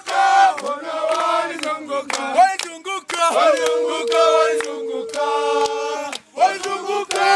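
A group of men singing a Swahili song together in chorus to steady hand claps, with one long held note in the middle. The singing drops out briefly near the end, then picks up again.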